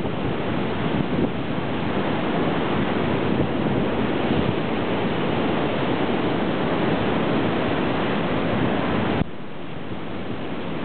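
Wind buffeting the microphone in a steady rush of noise, heavy in the low end, that drops abruptly to a lower level about nine seconds in.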